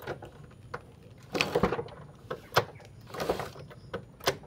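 A few short metallic clicks and scrapes from a screwdriver working against the flywheel rotor of a small motorcycle engine, spaced about a second apart.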